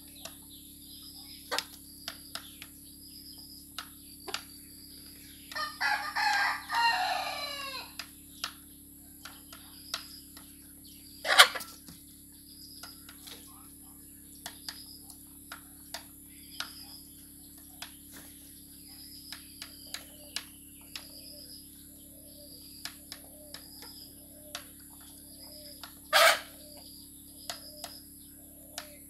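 Chickens pecking rice from a ceramic bowl and the dirt: a steady run of sharp beak taps, with two much louder knocks. About six seconds in a rooster crows once, for roughly two seconds, and later hens cluck softly in a slow repeating run, with faint high chirps throughout.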